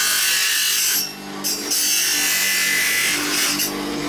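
Bench-mounted electric grinding machine abrading a piece of horn: a loud rasping grind over a steady motor hum. The grinding drops out briefly about a second in and again near the end, as the work is lifted off the wheel.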